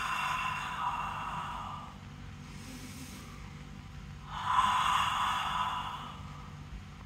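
A woman's long, soft, breathy 'haaa' exhalation, the heart sound of the Six Healing Sounds qigong breathing exercise, made twice: once at the start and again about four seconds in, each lasting about two seconds, with a faint in-breath between.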